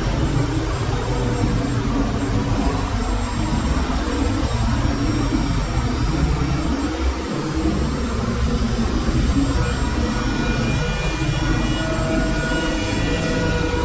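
Spindle motor running steadily on a hand-guided gantry router as its cutter surfaces a wooden slab.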